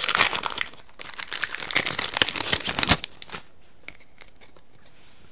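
Foil wrapper of a Yu-Gi-Oh! booster pack crinkling and tearing as it is opened by hand. It stops about three seconds in with one sharp crackle, leaving only faint handling of the cards.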